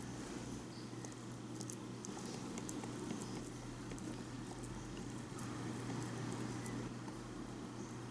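Small knife chopping hard-boiled egg on a miniature wooden cutting board: light, irregular taps of the blade on the wood, over a steady low hum.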